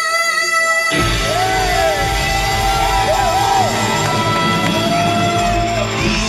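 Live Northern Soul band: a singer holds one long note, then about a second in the full band comes in loud with drums, bass and horns for the song's closing bars, with whoops and yells over it.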